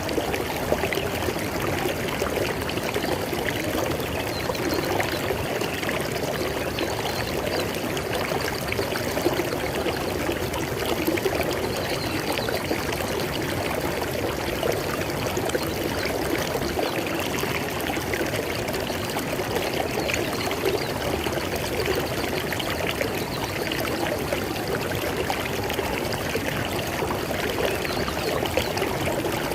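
River water flowing steadily, a continuous rushing and splashing with no change in level.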